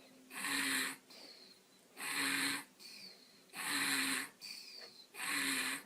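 Snoring in a steady rhythm: four loud, rasping breaths about one every second and a half, with a faint falling whistle between them.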